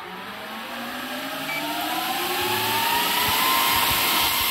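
The 48-volt 9 cm high-speed cooling fans of a 2000-watt FM power amplifier spinning up after power-on: a whine over rushing air that rises steadily in pitch and loudness, levelling off about three and a half seconds in.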